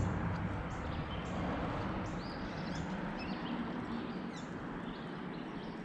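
Small birds chirping repeatedly in short high calls over a steady low rumble.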